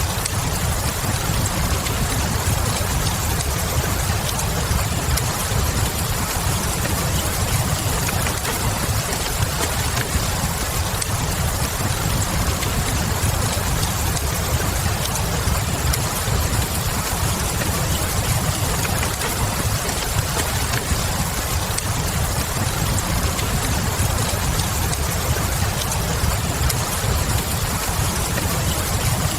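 Steady rain with a low rumble beneath it, and a few faint crackles from a wood fire.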